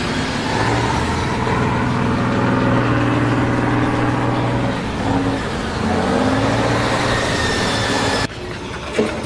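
An engine running steadily, its pitch dipping and climbing back once about two-thirds of the way through; it stops abruptly about eight seconds in.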